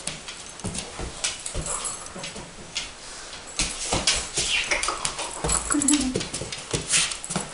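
Standard poodle whimpering with excitement while greeting and playing, over repeated scuffles and knocks.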